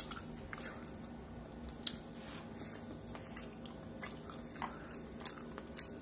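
A person chewing a mouthful of street tacos close to the microphone, with irregular short, sharp mouth clicks over a faint steady hum.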